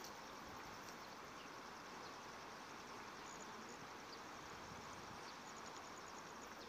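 Faint, steady outdoor background hiss with a thin, high insect trill running through it.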